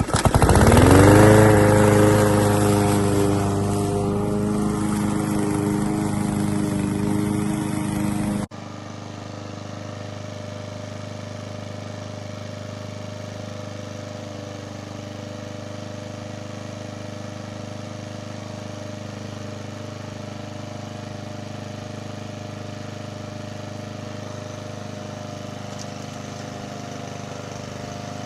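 A gas walk-behind push mower's 144cc OHV engine starts up and climbs to speed within about a second, then runs steadily at full speed. About eight seconds in, the sound cuts off abruptly to quieter, steady running of the same kind of engine.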